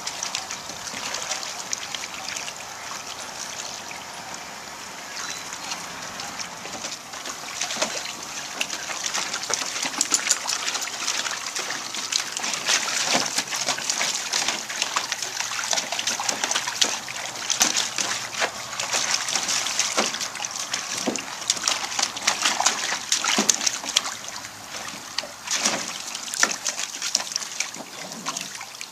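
Puppies splashing and sloshing as they paw and step about in a plastic kiddie pool, over the steady trickle of a garden hose running into it. The splashing gets busier about eight seconds in.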